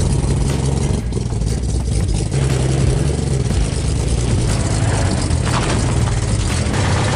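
A 1963 Ford F100 pickup's engine running at low revs as the truck pulls forward slowly.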